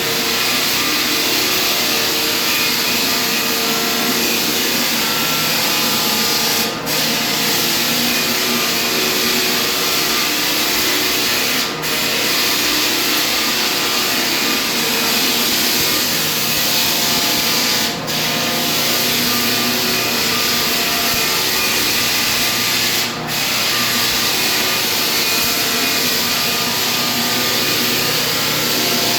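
Floor sanding machine running steadily on a hardwood floor, with a brief drop in level every five or six seconds.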